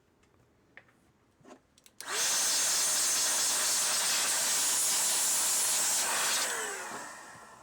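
A strong, even hiss of blown air that starts suddenly about two seconds in, runs for about four and a half seconds, then dies away over about a second with a falling whine, like a blower spinning down.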